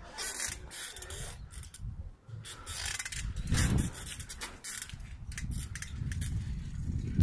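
Bicycle-mounted camera rattling as the bike rides over rough pavement: irregular sharp clicks and knocks over a low rumble of wind and road noise that swells about three and a half seconds in and again near the end.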